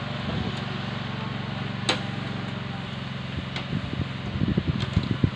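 Diesel engine of a Willys Jeep replica built on a Daihatsu Taft Kebo base, idling steadily. As the fold-down windscreen is raised, there is a sharp click about two seconds in and a few knocks near the end.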